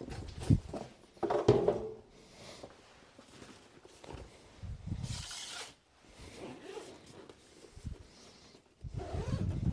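Unpacking a cordless tool kit by hand: knocks, thuds and rustles of the case and packaging being handled, with a brief rasp about five seconds in.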